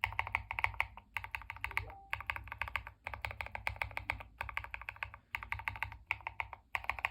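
Fast typing on lubed Fantasy DVA linear switches (Krytox 205/105 mix) in a tray-mount Tester 68 keyboard kit. Quick clacks come in runs of about a second with short pauses between.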